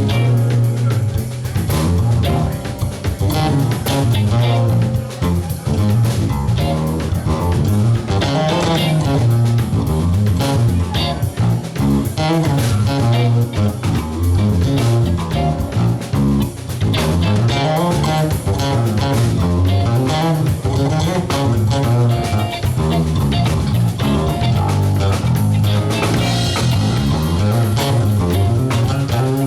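Live band playing, with the electric bass guitar line up front over drums and guitar.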